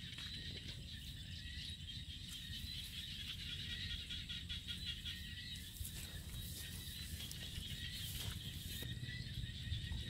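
A steady, high-pitched trilling chorus of calling animals, with a low rumble beneath and a few soft squelches and splashes of bare feet wading through mud and shallow water.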